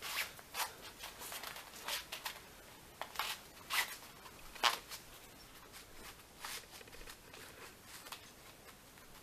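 Black cord being pulled and tied through the lacing of a fabric handguard heat wrap. It makes short, irregular scratchy rustles and scrapes, about ten of them, the sharpest about four and a half seconds in.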